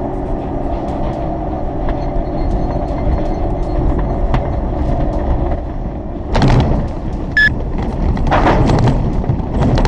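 Motor vehicle running with steady engine rumble and road noise. There is a louder rush of noise about six and a half seconds in and again near the end, and a short high beep shortly before the second.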